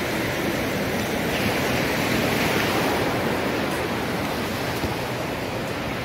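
Sea surf breaking and washing up a sandy beach: a steady rushing noise that swells a little around two seconds in.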